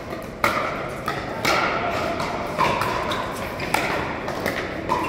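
Pickleball paddles striking the hard plastic ball: about five sharp hits, roughly one a second, ringing on in the echo of a large sports hall.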